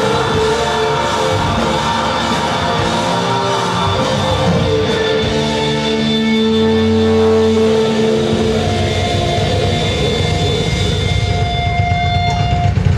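Metalcore band playing live at full volume, a loud, dense wall of heavy rock music with sustained pitched notes over a steady rhythm.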